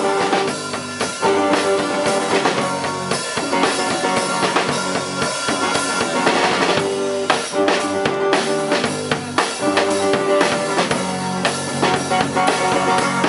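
Live band playing an instrumental stretch with no vocals: a Pearl drum kit with kick and snare, electric bass, and an amplified acoustic-electric guitar playing a figure that repeats about every two seconds.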